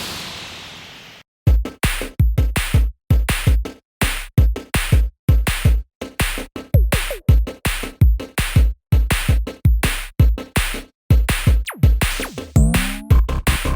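Background electronic music with a drum-machine beat. A ringing tail fades out at the start, then after a short silence the punchy beat comes in about a second and a half in, with a short rising synth sweep near the end.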